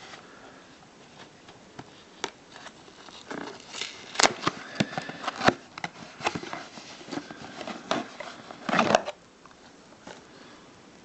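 Hands handling the packaging of a knife being unboxed: a run of sharp clicks, taps and rustling that starts about three seconds in and stops about nine seconds in, the loudest clicks a little after four seconds and again near five and a half.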